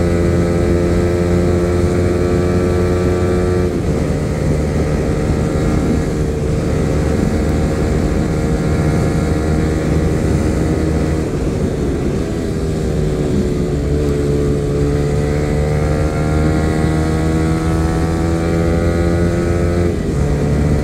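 Yamaha R15 V3's 155 cc single-cylinder engine running steadily under way on the open road. The engine note breaks briefly about four seconds in and again near the end, and sinks then climbs back around the middle as the bike slows and picks up speed.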